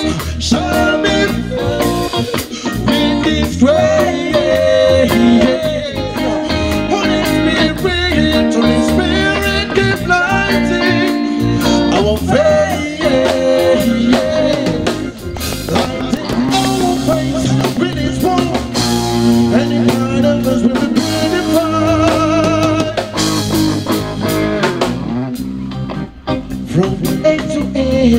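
Live band music: singing over electric guitars and a drum kit.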